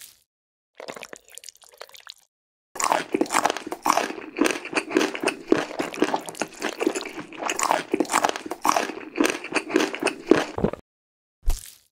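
Food-preparation ASMR foley: a dense run of crunching and squishing that starts about three seconds in and lasts about eight seconds, after a fainter rustle near the start. A single short knock comes near the end.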